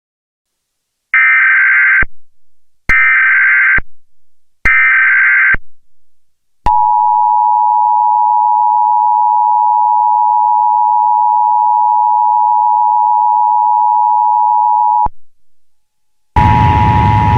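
Emergency Alert System test: three short, screeching digital header bursts about a second apart, then the EAS attention signal, a steady two-tone electronic tone held for about eight seconds. Near the end a louder, noisy sound begins, with the same two tones under it.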